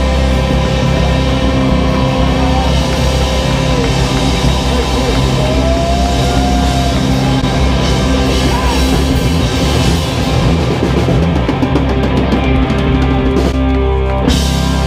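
Loud rock band music with a drum kit, playing continuously; the cymbal wash drops out suddenly just before the end.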